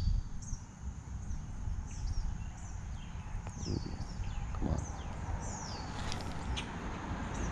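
Birds calling with short, high, downward-slurred notes repeated every second or so, over a steady low rumble.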